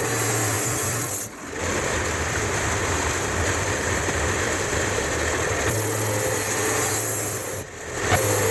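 Sawmill running and sawing poplar into siding boards: a steady machine and cutting noise, broken by short drops about a second in and again near the end.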